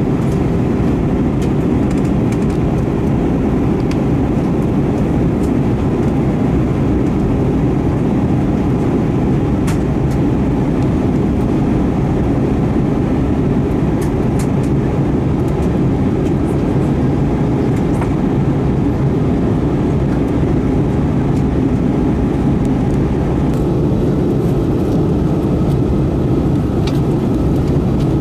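Steady in-flight cabin noise of an Airbus A320-232 in descent, heard from a window seat beside the wing: its IAE V2500 turbofan engines and the airflow over the fuselage make a constant low drone with a faint steady whine above it.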